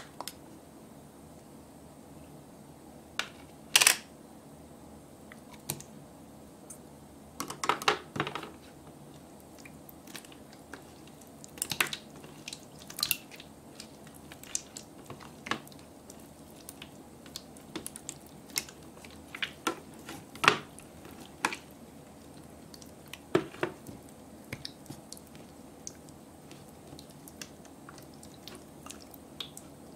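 Soft, sticky slime being stretched, folded and squeezed by hand, giving off irregular sticky clicks and little pops, sometimes in quick clusters, with quiet gaps between.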